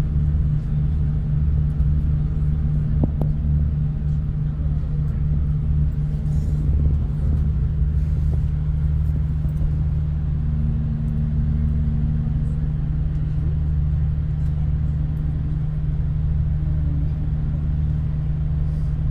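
Steady low rumble and engine hum inside a moving V/Line diesel passenger train, with a few faint clicks.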